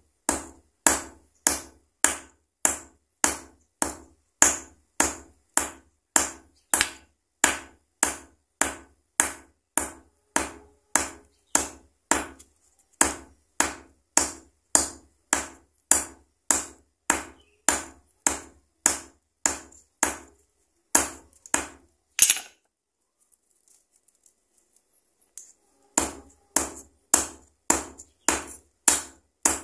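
Hammer pounding a dried cattle leg tendon on a steel anvil block to break it down into sinew fibres, in sharp, steady strikes about three every two seconds. The strikes stop for about three seconds near the end, then resume at the same pace.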